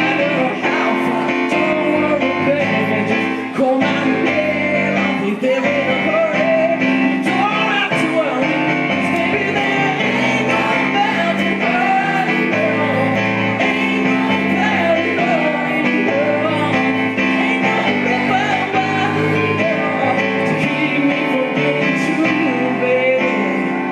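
A man singing with his own Yamaha digital piano accompaniment, playing chords that change in a steady rhythm under the sung melody, in a live piano-and-voice cover of Motown songs.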